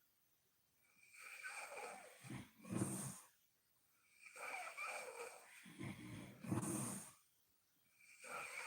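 A sleeping woman snoring in slow, regular breaths: two full breaths, each swelling into a loud, rumbling snore with a quiet pause between, and a third breath beginning near the end.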